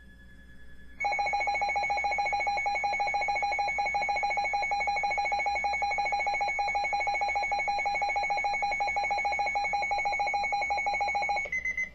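Weather radio alert tone: a loud, steady, rapidly pulsing tone that starts about a second in and lasts about ten seconds, signalling that a weather bulletin follows. It cuts off near the end and gives way to a few short, higher beeps.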